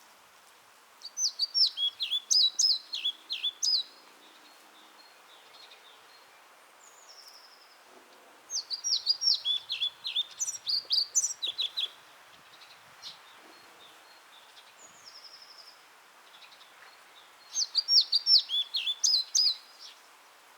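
A songbird singing three song phrases, each about three seconds of rapid, high, sweeping notes, with a few fainter short calls in the pauses between them.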